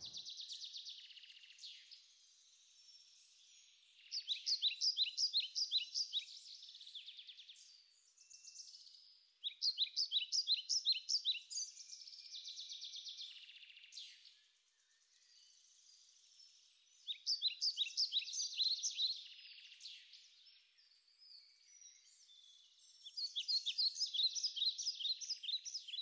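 A songbird singing: four loud phrases, each a quick run of repeated high notes lasting two to three seconds, with fainter twittering between them.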